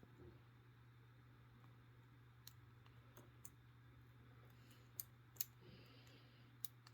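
Faint, scattered clicks of a hook pick working the pins inside a small padlock under tension, a few sharp ticks with the two loudest about five seconds in. The lock is a 40mm Smith & Locke padlock that the picker takes to be full of spool pins.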